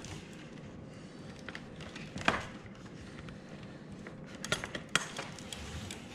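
Vertical blind slats being pushed into the plastic carrier clips on the headrail: a sharp click a little over two seconds in, then a few more clicks and light rattling of the slats around four and a half to five seconds in.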